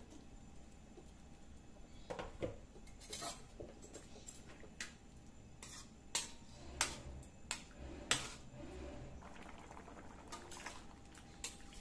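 Slotted metal spatula clinking and scraping against a metal wok while stirring chicken and potatoes in curry broth, with irregular sharp clinks, loudest and closest together from about six to eight seconds in.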